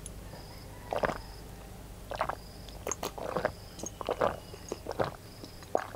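Close-miked gulps and swallows of plain water drunk from a glass mug, about six swallows roughly a second apart.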